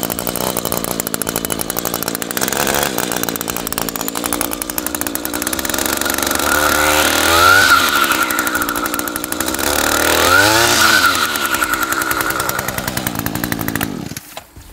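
Echo SRM-225 string trimmer's small two-stroke engine running with a circular saw blade spinning freely on its head, with no load. It is revved up twice, about seven and ten seconds in, dropping back to idle each time, then shut off near the end.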